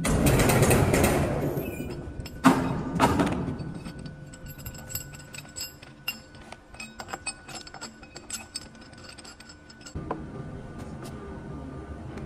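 Metal clinking and knocking as steel tools and rigging work against the steel plates of a rubber seismic isolation bearing. Two sharp ringing knocks come about two and three seconds in, followed by a run of light clinks. A steadier low noise sets in near the end.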